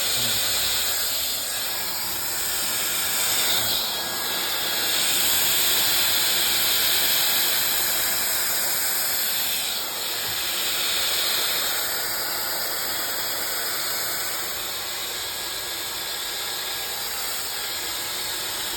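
Hair dryer with a curler head attachment running steadily: a continuous rush of blown air with a high motor whine over it, a little louder for a few seconds in the middle.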